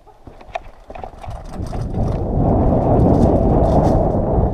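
A mountain bike speeding down a dirt singletrack: a few clicks and rattles over roots, then a rushing rumble of wind and tyre noise on the camera's microphone that builds from about a second in and stays loud as the bike picks up speed.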